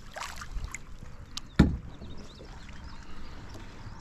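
Water splashing as a channel catfish is grabbed by hand and lifted out of the water beside a kayak, with a few faint knocks and one loud thump about a second and a half in.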